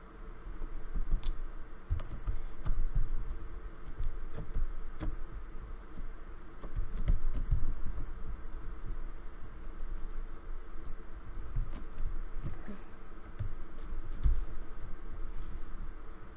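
Fingers working slime and picking out hard, dried-out bits of clay: irregular small clicks and soft low thumps.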